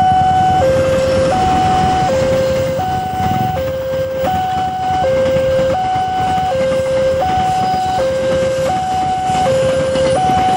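Railway level-crossing warning alarm from the loudspeaker on the crossing signal: an electronic two-tone signal alternating steadily between a lower and a higher note, each held for under a second. Under it runs the rumble of a passenger train rolling past on the tracks.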